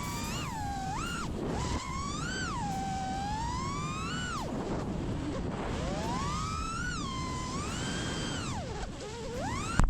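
Motors of a 5-inch FPV quadcopter whining, the pitch sweeping up and down repeatedly as the throttle is punched and chopped, over a low rumble. A sharp click comes near the end.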